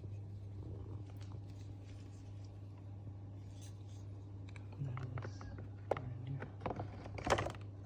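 Plastic parts of a capsule coffee machine being handled and fitted: scattered clicks with a sharp click about six seconds in and a louder rattling scrape near the end, over a steady low hum.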